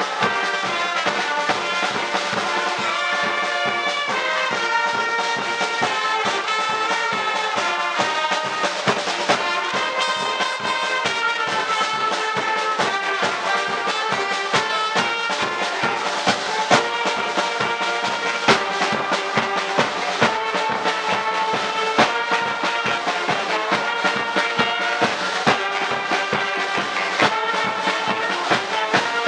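A banda brass band playing live: trumpets, trombones and saxophones carry the tune in held and shifting notes over a steady drum beat.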